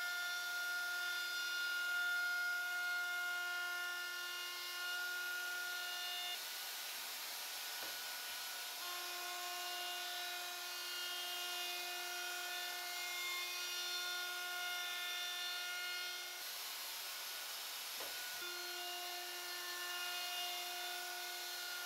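Handheld router running with a steady high whine over the hiss of the bit cutting wood as it routs a 45-degree chamfer along the edge of a wooden board. The whine drops out twice for about two seconds, each time with a short knock.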